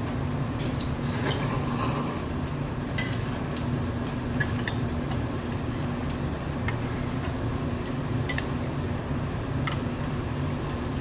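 Chopsticks and a small ceramic bowl clinking and tapping against a large stainless steel noodle bowl as noodles are lifted and served out, a dozen or so scattered short clicks. A steady low hum runs underneath.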